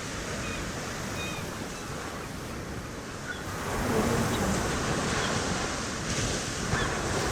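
Surf washing on a beach, swelling about four seconds in, with a few faint, short seagull cries over it.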